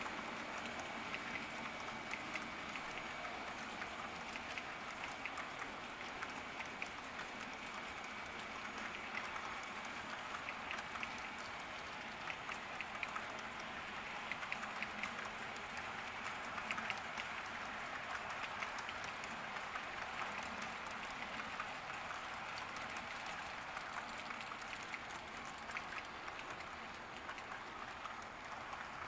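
Model freight cars rolling past on the track, their small metal wheels making a steady rattle of quick clicks, with a faint high whine in the first ten seconds or so. The rattle eases slightly near the end as the caboose passes.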